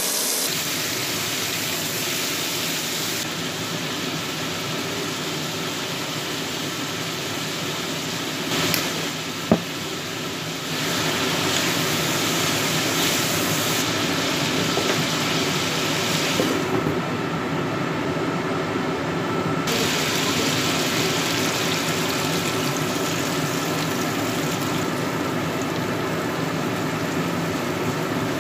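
Chunks of pork frying in hot oil in a pan, a steady sizzle that steps up in loudness partway through, just after a sharp click.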